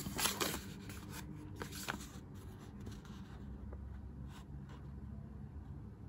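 Paper instruction leaflet being handled and shifted between the fingers, giving a few short rustles and crinkles in the first three seconds and one more a little past the middle, over a faint low hum.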